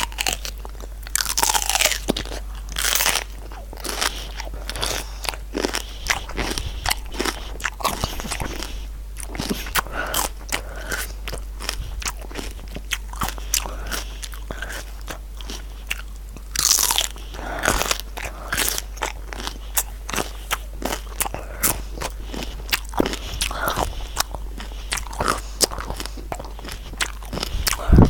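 A person biting into and chewing crisp raw vegetables with loud crunches. Several louder bites stand out, near the start, about three seconds in and around seventeen seconds, between runs of steady crackly chewing.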